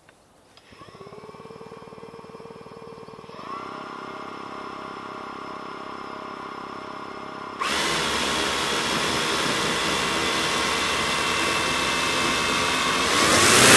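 Hexcopter's six electric motors and propellers spinning up on the ground with a steady whine of several tones, stepping up in speed twice, then throttling up sharply near the end for take-off.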